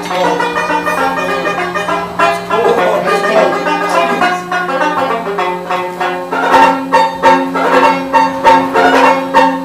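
String music with plucked notes over a steady held low note; a second held note joins about two-thirds of the way through.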